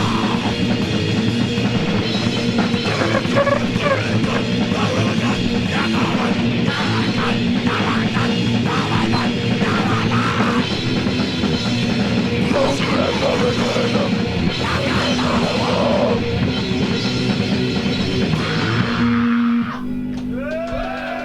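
Live band playing at full volume: distorted electric guitars, bass and fast drums. About twenty seconds in the playing stops abruptly, leaving a held amplifier note ringing on.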